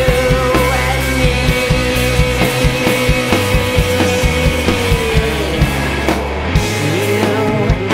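Rock band playing an instrumental passage: drums keep a steady beat under heavy bass and a long held note that bends downward about five seconds in.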